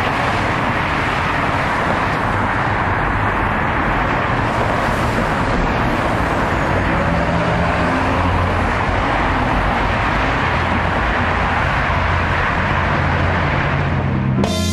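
Steady road traffic noise of cars running along a freeway, with a low engine hum underneath.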